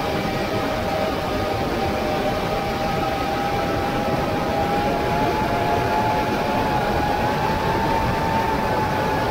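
Drone's electric motors and propellers whining steadily over a rushing noise, the pitch creeping up slightly a few seconds in and easing back.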